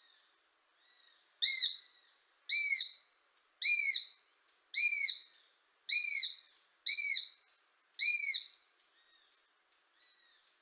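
Eurasian sparrowhawk calling: seven drawn-out calls about a second apart, each rising then falling in pitch, with fainter calls of the same kind before and after.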